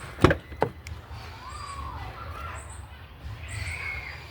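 Two sharp knocks in quick succession, followed by a few faint chirping bird calls over a low steady hum.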